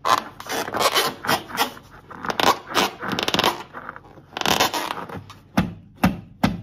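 Hand squeezing and rubbing an inflated latex balloon: a run of short, irregular rubbery scrapes, with two sharper knocks near the end.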